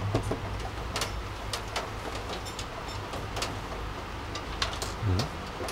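Steady rain, with irregular sharp ticks against the window, roughly two a second.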